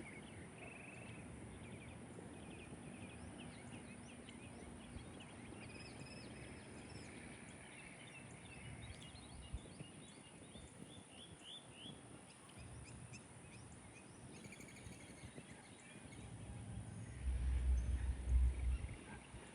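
Backyard birds chirping and calling in many short, overlapping notes, with a loud low rumble starting near the end.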